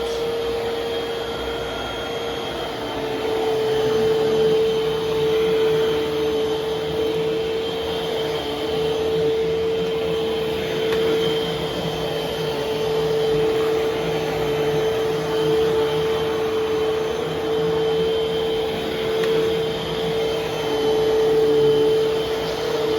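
Vacuum cleaner running: a steady motor whine over a rush of airflow, its loudness swelling and easing gently.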